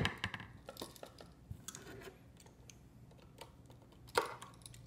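Scattered small clicks and taps of a screwdriver and wires on the terminal screws of a wall receptacle as the wires are unscrewed and taken off, with a louder scrape about four seconds in.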